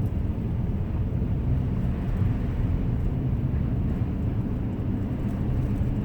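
2010 Acura MDX driving along, a steady low rumble of engine and road noise.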